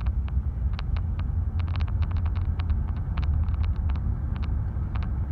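Steady low rumble of a car's engine and road noise heard from inside the cabin as the car moves, with scattered sharp clicks and ticks at irregular intervals.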